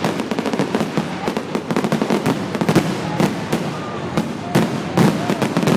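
Fireworks going off in quick succession: a dense, rapid crackle of bangs with several louder booms in the second half.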